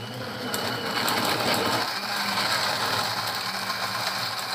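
Electric countertop blender running at full speed, blending ice, peanuts, chopped fruit and milk into a shake. A dense rattling grind settles into a steadier whir with a low hum about halfway through.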